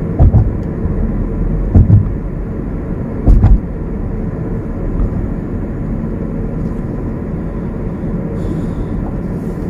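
Steady road and engine noise inside a moving car's cabin at highway speed, with three short low thumps in the first few seconds.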